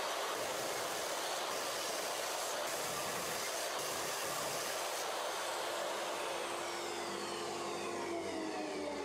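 Jobsite table saw ripping a thick hardwood board, a loud steady cutting noise. After about six and a half seconds the motor is switched off and spins down, its pitch falling.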